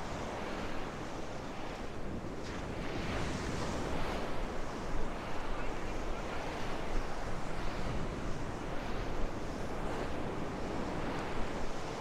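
Gulf surf breaking and washing up on the beach, rising and falling, with strong wind buffeting the microphone and adding a low rumble.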